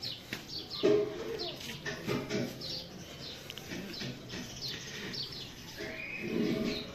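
Small birds chirping over and over: short, high, falling chirps. A louder, lower sound comes about a second in and again near the end.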